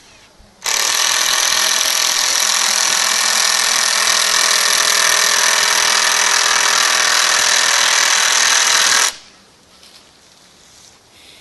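Cordless power drill running steadily into the wooden 2x4 framing for about eight seconds, starting just under a second in and cutting off abruptly.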